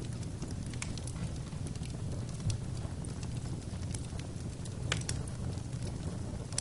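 Fire burning in a fireplace: a steady low rumble of flame with irregular sharp crackles and pops, one of them louder about five seconds in.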